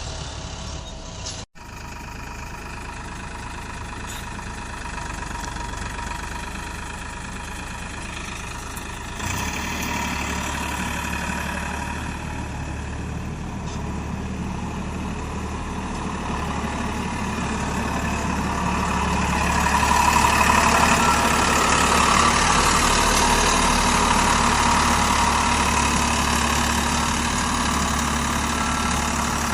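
Diesel engine of a JCB 3DX backhoe loader running under work load, with tractor engines idling alongside. It steps up about nine seconds in and grows louder again from about twenty seconds, and the sound cuts out for an instant about a second and a half in.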